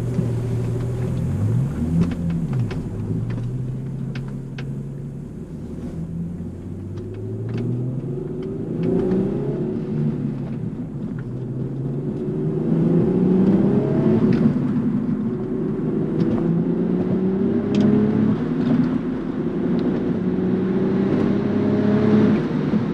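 B5 Audi S4's 2.7-litre twin-turbo V6 pulling under load while driving, its engine note climbing several times with drops in between as it goes up through the gears. A test run for knock and cutting out after an injector replacement, with no cutting out heard.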